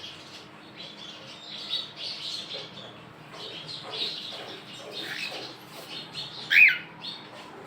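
Cockatiels chattering with a steady scratchy twitter, and one loud, short rising-and-falling call near the end.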